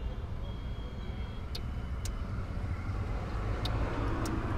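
Low steady rumble with a few sharp clicks as a jumper wire's pin is pressed into the terminals of a plastic wiring connector.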